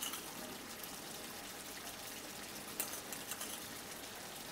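Thick curry gravy simmering in a pan, a steady bubbling sizzle, with one faint tap near the middle. The gravy has cooked down nearly dry, so it is close to done.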